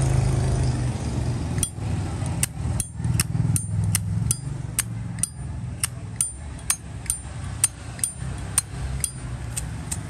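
Zippo lighter lid flipped open and snapped shut over and over, sharp metallic clicks with a brief ring, two to three a second, starting about one and a half seconds in. A steady low hum runs underneath.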